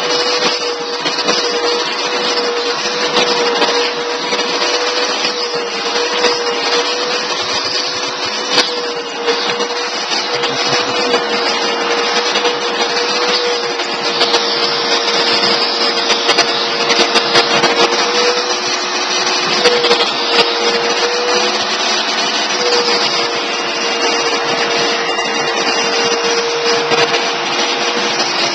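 Vacuum cleaner running steadily: a constant motor tone over an even rush of air.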